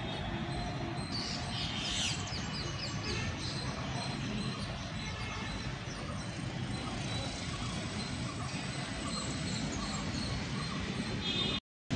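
Outdoor ambience: small birds chirping in a quick series over a steady low rumble. The sound cuts out briefly near the end.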